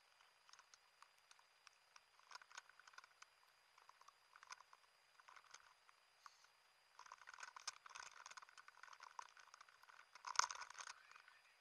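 Near silence with faint scattered clicks and rustling, a little louder about seven and ten seconds in.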